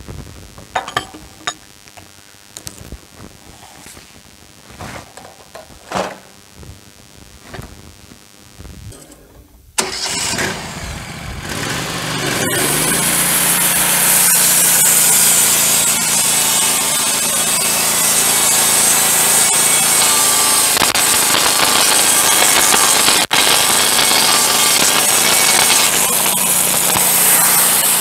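A few scattered knocks and clunks, then about ten seconds in the Wood-Mizer LT15 Go sawmill's gasoline engine starts and runs up over a couple of seconds to a steady, loud speed.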